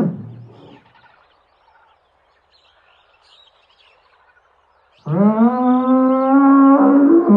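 Faint bird chirps, then about five seconds in a large animal gives a long, loud, drawn-out call that rises in pitch at the start and then holds steady.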